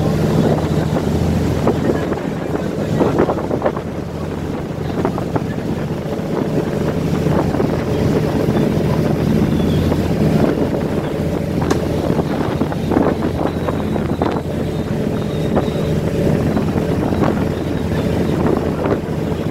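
Steady low drone of a boat's engine, with wind buffeting the microphone over the rush of water.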